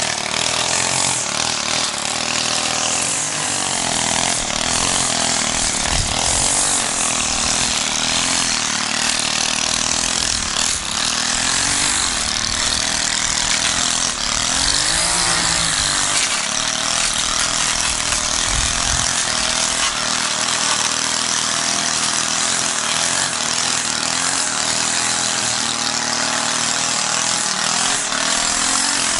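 Small gas engine of a walk-behind push mower running steadily under load while cutting grass.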